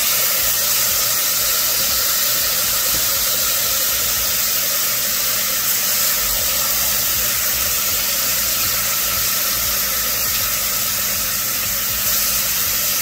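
Oxtail sizzling in a pot as it browns in hot coconut oil and caramelized sugar: a steady, even hiss.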